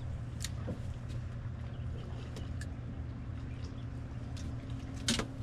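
Boat motor running steadily at low speed, a steady low hum, with a few faint ticks and a sharper tick near the end.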